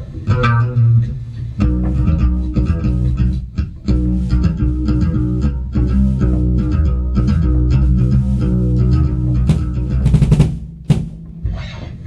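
Electric guitars and bass guitar playing a heavy metal riff through amplifiers, with sustained chords and a strong low end. A loud hit comes shortly before the end, after which the playing drops away.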